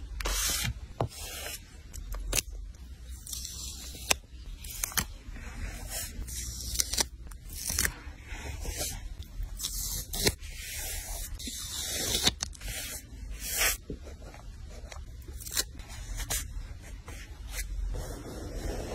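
Close-up paper handling for a journal page layout: a run of short scrapes and rustles of paper, with a few sharp clicks between them.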